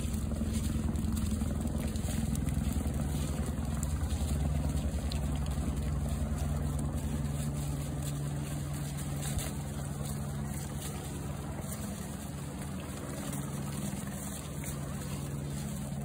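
A steady low engine hum, with hooves and footsteps crunching on a gravel track.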